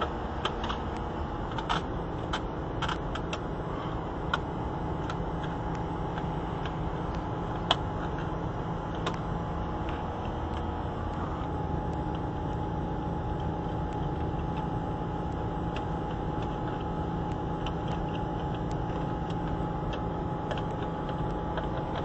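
Steady mechanical hum of a 30-ton rooftop HVAC unit running, with scattered light clicks and taps in the first half, one louder at about eight seconds, as wiring in its open control panel is handled.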